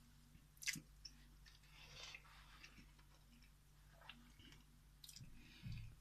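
Faint chewing of a mouthful of pizza, with one sharp click less than a second in and a soft low thump near the end.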